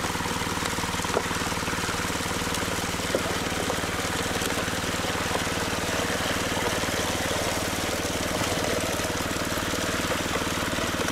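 Small petrol engine of a portable water pump running at a steady speed, with water rushing through an aluminium highbanker sluice as a bucket of clay soil and rocks is tipped into the header box. Two sharp knocks come in the first few seconds.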